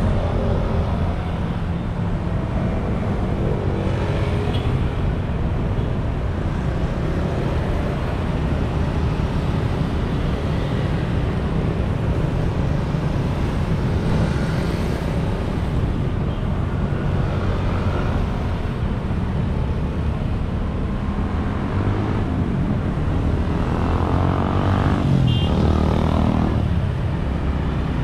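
Steady city road traffic: motorbikes, scooters and cars passing close by, a continuous rumble of small engines and tyres on asphalt. Near the end one vehicle passes louder and closer, its engine pitch rising and falling as it goes by.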